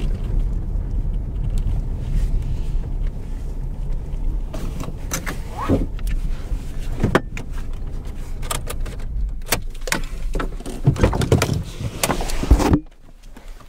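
Car driving on a forest road, heard from inside the cabin: a steady low rumble of engine and tyres, with a run of knocks and rattles in the second half. The rumble cuts off suddenly near the end.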